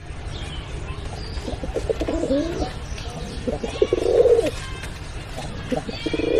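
Domestic pigeons cooing, three bouts of low, throaty coos a second or two apart, with brief higher chirps among them.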